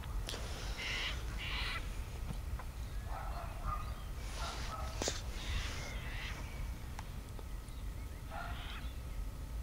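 Freight train wagons rolling past with a low, steady rumble, while a bird gives harsh cawing calls about six times over it.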